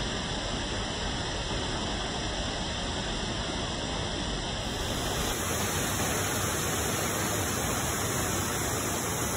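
Steady rushing of flowing water from a forest creek and waterfall, changing slightly in tone about five seconds in.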